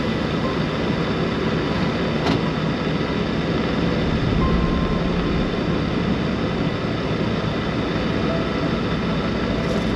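Steady engine and road noise heard inside a semi truck's cab as it drives at highway speed.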